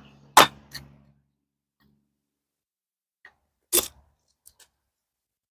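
Axe blows splitting dry oak firewood: a sharp crack about half a second in, another near four seconds and a third at the end, with a few small knocks of wood between.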